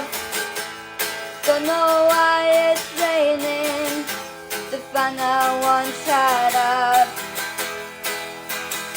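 Acoustic guitar strumming a song accompaniment, with a wordless sung melody over it for most of the first seven seconds, then the guitar alone.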